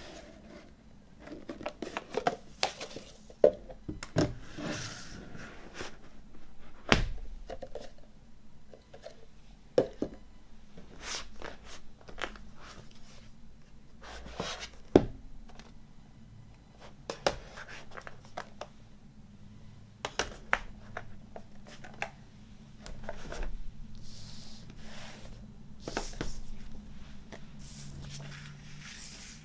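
Hands opening and handling a movie box set's packaging: rustling and tearing, with sharp clicks and knocks from the box and cases being handled. The three loudest knocks fall about 3 seconds in, 7 seconds in and halfway through.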